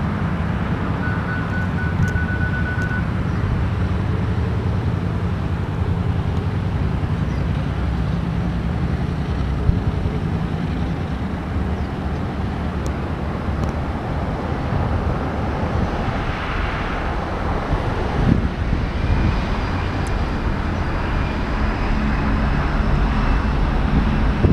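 Boeing 737-500's two CFM56-3 jet engines running at takeoff power as the airliner rolls away down the runway: a steady low rumble with a hiss, and a faint high whine in the first few seconds.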